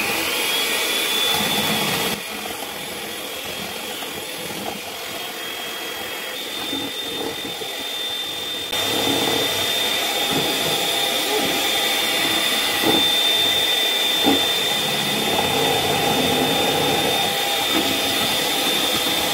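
Corded electric hand mixer running with its beaters in a stainless steel bowl, whipping heavy cream into whipped cream: a steady motor hum with a high whine. It goes quieter about two seconds in, comes back louder after about nine seconds, and there are a few short knocks in the middle stretch.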